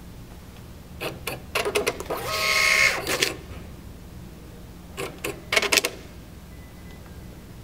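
Star Micronics TSP650II thermal receipt printer printing its self-test page: a run of clicks, then about a second of whirring paper feed with a steady whine, then more clicks around five seconds in.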